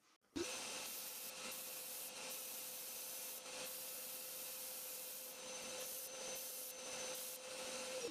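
Stationary disc sander running with a small wooden block pressed against its abrasive disc: a steady motor hum under a scraping hiss. The hiss starts suddenly just after the beginning and dips briefly several times as the wood is worked against the disc.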